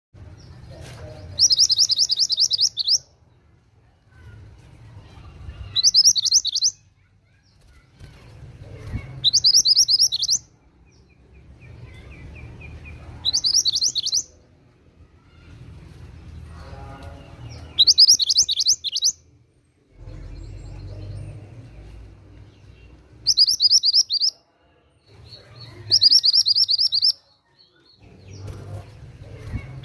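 Mantenan gunung songbird singing a loud, fast, high trilled phrase about every four seconds, seven times, with softer twittering and a low background rumble between phrases.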